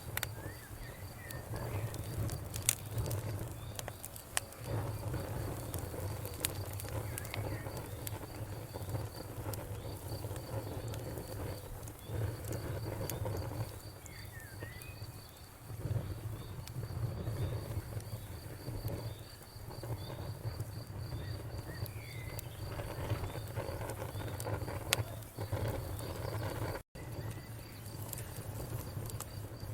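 Wood fire crackling with scattered sharp pops over a low steady rumble, while a cricket chirps in an even, steady rhythm and a few short gliding chirps sound now and then. The sound cuts out for an instant near the end.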